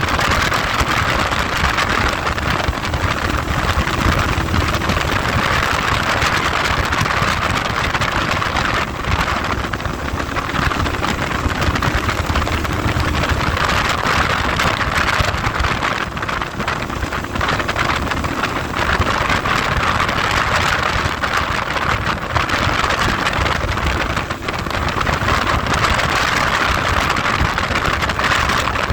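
Very bad wind noise buffeting the microphone on a moving motorcycle, a steady loud rush with the engine running underneath.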